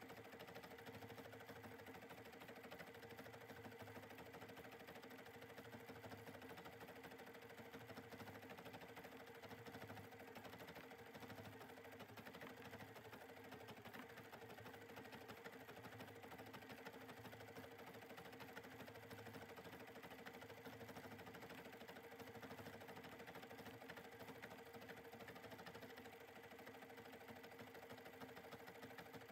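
Bernina 790 sewing and embroidery machine stitching out an embroidery design, its motor running with a faint, steady hum.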